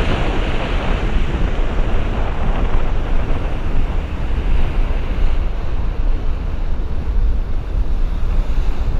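Wind buffeting the microphone over the steady wash of choppy sea waves.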